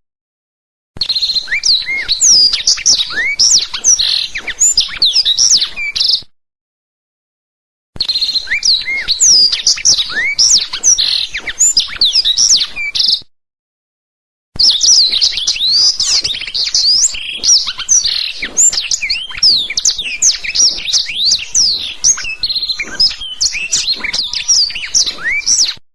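Black-throated canary (blackthroat) singing a fast, continuous song of quick high chirps and trills. The song comes in three stretches and cuts off abruptly into silence twice, about 6 and 13 seconds in.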